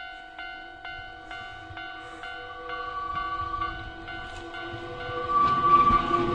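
Japanese railway level-crossing bell ringing, a little more than two strikes a second. Under it a Nankai electric train approaches, and its rumble grows much louder in the last second or so.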